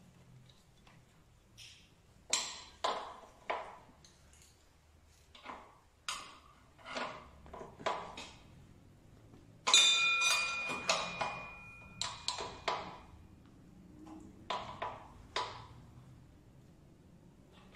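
Hand-tool work on a Peugeot 103 moped engine: a series of sharp metallic clicks and knocks from tools and parts, with one loud ringing metal ping about ten seconds in that fades over a second or so.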